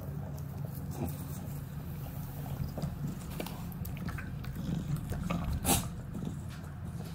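English bulldog chewing and mouthing a whole raw tomato, with scattered short clicks and smacks; one sharp smack about five and a half seconds in is the loudest sound.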